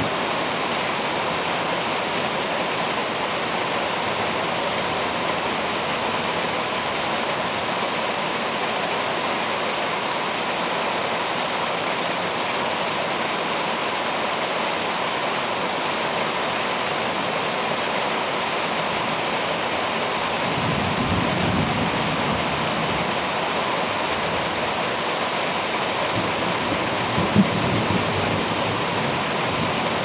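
Heavy tropical rain pouring steadily onto broad leaves and the ground. About two-thirds of the way through, low rolls of thunder come in beneath it, swelling near the end.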